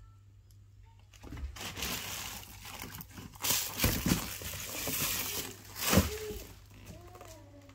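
Rustling and crinkling of packing paper and the clear protective plastic on the handles as a new tote bag is handled, with a few knocks. The loudest knock comes about six seconds in.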